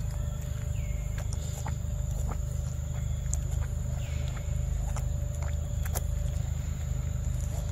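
A steady low rumble, with scattered small clicks and sucking sounds from a young macaque drinking from a milk carton held to its mouth. Two brief falling chirps come about a second in and again past the middle.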